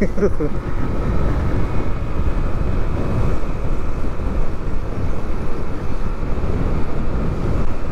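Motorcycle riding at road speed: steady engine and road noise under wind rush on the microphone.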